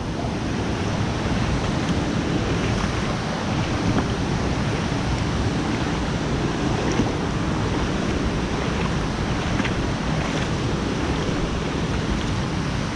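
Loud, steady rushing of water pouring over a dam's man-made waterfall.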